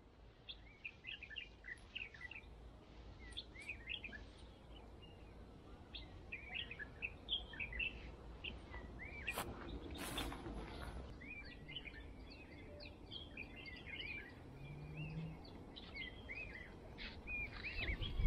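Small wild birds chirping and twittering in many short notes, with a brief rustling noise about nine to ten seconds in.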